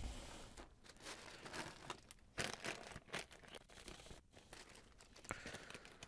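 Irregular rustling and crinkling with a few small knocks, as of things being handled and rummaged through, such as a cable being pulled out and sorted.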